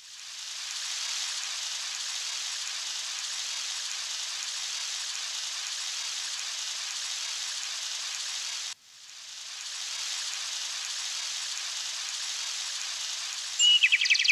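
A steady hissing rain effect from a Roland E-12 keyboard's sound-effect voice, played as two held notes: it swells in, cuts off suddenly about nine seconds in, then swells in again. Just before the end, a keyboard bird-chirp effect starts over it.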